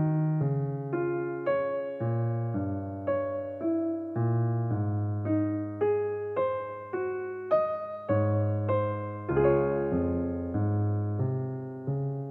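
Background piano music: a slow melody of single struck notes, about two a second, over held bass notes.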